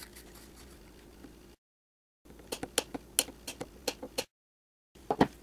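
Sharp clicks and taps of hands working a small circuit board with pliers: a quick run of clicks in the middle, then one louder click near the end, with stretches of dead silence between.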